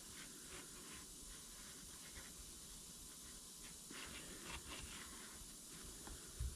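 Faint scratching and light clicks of hand work on the plastic, over a steady hiss, with a short low thump near the end.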